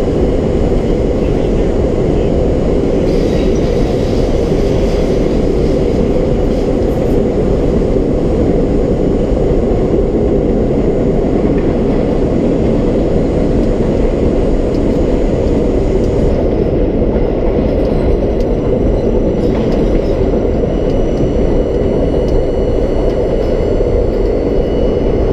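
R32 subway car running at speed, heard from inside the car: a loud, steady rumble of steel wheels on rail and traction motors, unbroken throughout.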